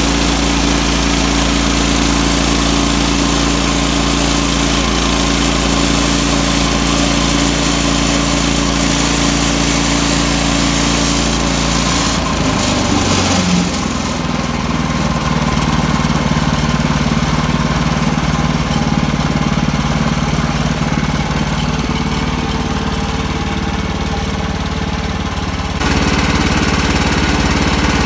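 Portable sawmill's small gasoline engine running steadily, its note changing about halfway through and again near the end.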